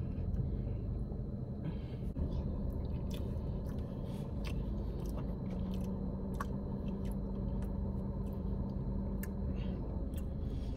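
A person chewing a mouthful of soft, wet tres leches cake, with small scattered mouth clicks, over a steady low hum inside a car.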